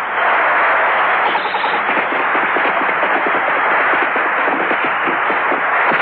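Steady roar of a stadium crowd in a cartoon football match, with a quick, uneven patter of short knocks under it.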